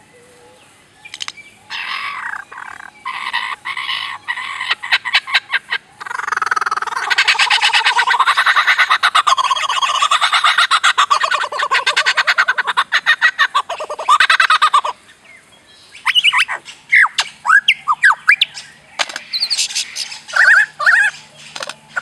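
Lyrebird singing a loud run of mimicked calls. Short harsh calls come first, then a long stretch of very rapid rattling, then a series of sharp whistled notes that swoop up and down near the end.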